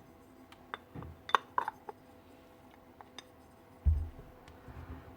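Small metal parts and tools being handled on a workbench: several light clinks and clicks in the first two seconds, another about three seconds in, then a dull thump about four seconds in.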